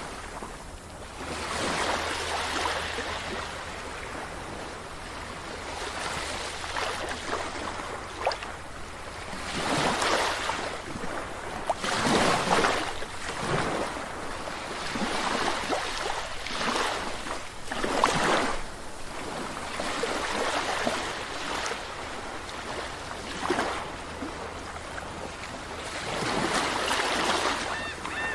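Sea waves breaking and washing up a beach, surging every few seconds, with several louder breakers.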